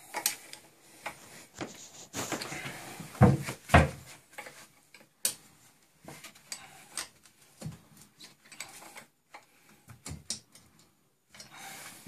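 Open-end wrench tightening the mounting bolts of a lathe headstock: scattered metal clinks and knocks of the spanner on the bolts, the two loudest about three and four seconds in.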